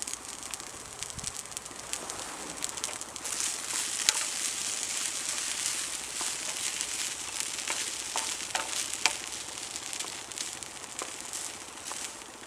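Dry curry sizzling and crackling in a cheap thin frying pan heated without oil, the sizzle swelling about three seconds in, with occasional sharp clicks.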